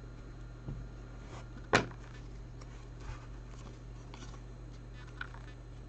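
Quiet handling of trading cards on a table: one sharp click under two seconds in and a few faint taps, over a steady low electrical hum.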